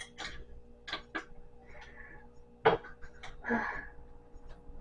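Scattered light knocks and clicks, the sharpest about two-thirds of the way through, with a short scrape after it: parts of a flat-pack stand being handled and fitted together during assembly.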